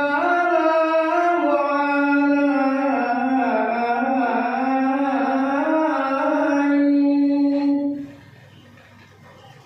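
A man's voice singing one long, drawn-out melismatic line of a dikir chant, unaccompanied, with no drum strokes. The voice stops about eight seconds in.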